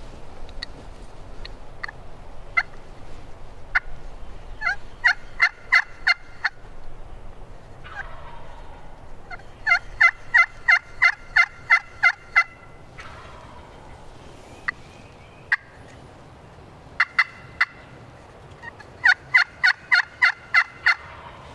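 Turkey yelping: four runs of evenly spaced yelps at about four a second, the longest about ten notes, with single sharp clucks scattered between the runs.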